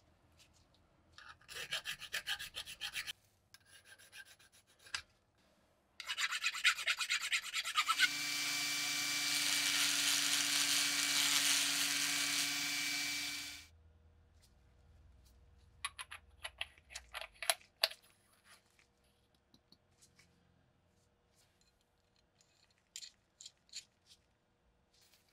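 Quick hand strokes scraping on cast metal, smoothing casting marks. About eight seconds in a handheld rotary tool starts and runs steadily for about five seconds, its small grinding stone working inside a threaded metal cap, then it spins down. Scattered light metal clicks and rubs follow as the parts are handled and a ring is fitted.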